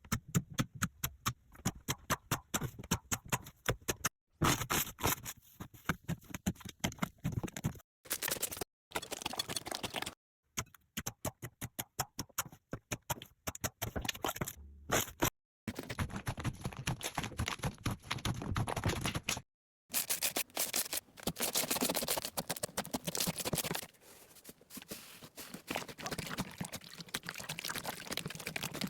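Slime being pressed, poked and stretched by hand, giving dense runs of small sticky clicks and crackles. It comes as short clips cut together, with abrupt brief silences between them.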